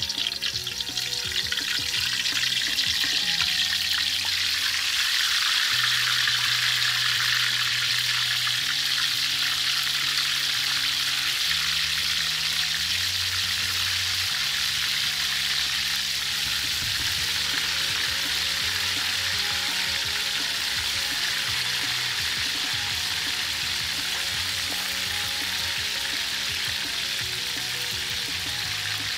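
Quail pieces deep-frying in hot oil in a wok, a loud steady sizzle that swells over the first couple of seconds as pieces go into the oil. Soft background music plays underneath.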